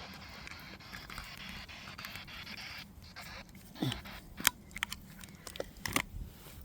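Faint steady hiss that stops about three seconds in, followed by scattered clicks, knocks and scrapes of equipment being handled.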